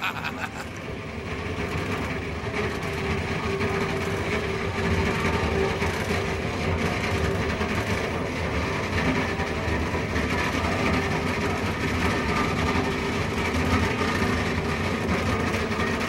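Sawmill log debarker running steadily as its toothed rollers turn a log while its steel teeth strip the bark off, a continuous dense machine noise with a few steady hum tones.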